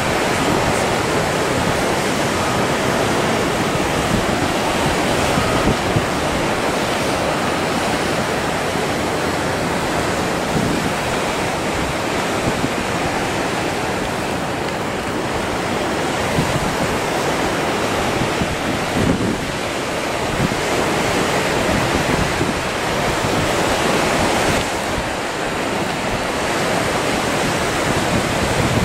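Steady rush of sea surf and choppy swell breaking, with wind buffeting the microphone.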